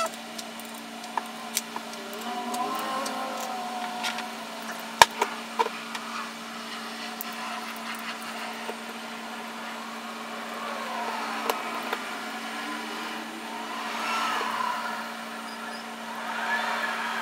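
Scattered small clicks and taps of metal carburetor parts as the main body of a Holley 4150 carburetor is seated on its throttle-blade base and its perimeter screws are fitted by hand, over a steady background hum.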